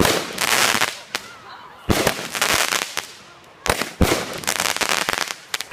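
Consumer fireworks going off one after another: sharp bangs, each followed by about a second of crackling hiss. They come roughly every two seconds, with two close together near the middle.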